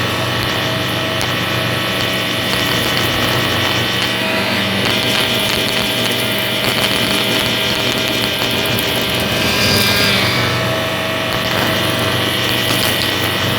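Shark vacuum cleaner running steadily with a constant motor hum and whine; the sound swells briefly about ten seconds in.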